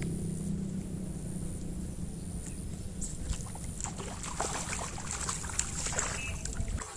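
Water splashing and sloshing irregularly from about three seconds in, over a steady low rumble that cuts off suddenly near the end.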